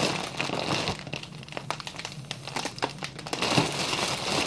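Foil party balloon crinkling and crackling in the hands as it is held to the mouth, in irregular rustling bursts.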